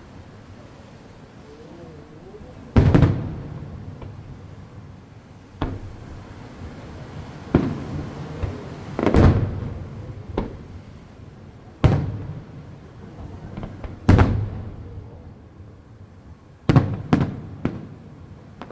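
Aerial firework shells bursting: about ten separate sharp bangs a second or more apart, each trailing off in a rumbling decay, with three in quick succession near the end.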